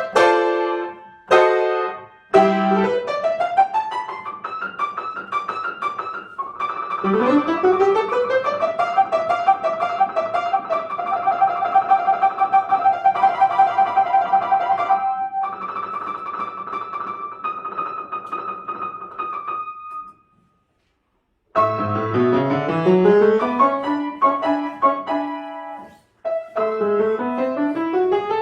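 Solo piano playing, with quick rising arpeggio runs and a rapidly repeated high note or trill in the middle. The sound drops out completely for about a second and a half about two-thirds through, then the playing resumes with more rising runs.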